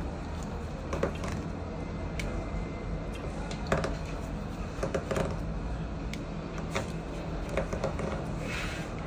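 Scattered small clicks and taps of a smartphone being taken apart by hand with small tools, over a low steady hum.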